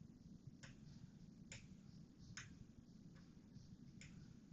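Near silence: a faint low room hum with faint, sharp clicks about once a second.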